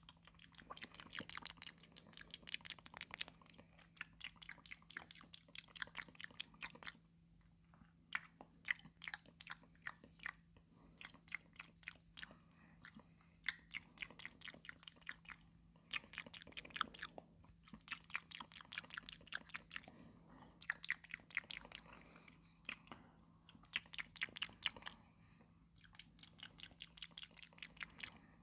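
Close-miked chewing of crunchy cucumber: runs of rapid crisp crunching clicks in bursts of a few seconds, broken by short pauses.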